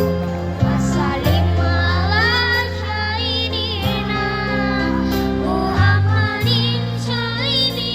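A sholawat (Islamic devotional song) sung by a high, young-sounding voice with wavering, ornamented notes over instrumental backing with long held bass notes.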